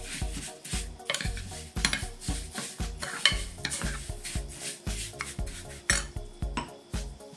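A metal spoon stirring and scraping coarse salt mixed with grated orange zest in a glass baking dish, in repeated gritty strokes. Background music with a steady beat plays underneath.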